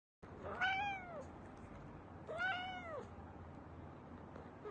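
Domestic cat meowing twice, each meow rising and then falling in pitch, with a third meow starting at the very end.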